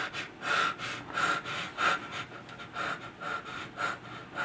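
A man panting in short, quick breaths, nearly two a second, in fear and distress.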